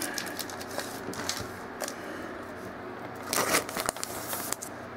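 Football trading cards being handled and slid against each other: scattered light clicks and crinkles, with a louder rustle about three and a half seconds in.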